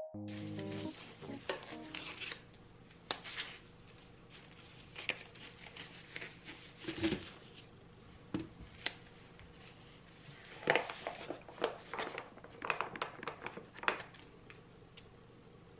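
Handling of kraft paper packets, a plastic bowl and rubber gloves: scattered crinkling, with light clicks and taps, busiest in a cluster near the end. A short mallet-percussion tune ends about a second in.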